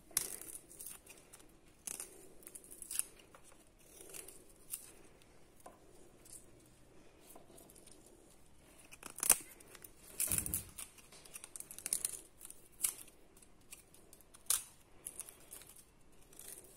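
Dry, papery garlic skins being peeled off the cloves by hand: scattered crinkling and tearing, with a sharp knock about nine seconds in and a low thud a second later.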